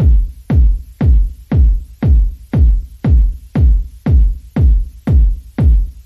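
Electronic background music driven by a heavy kick drum, about two beats a second.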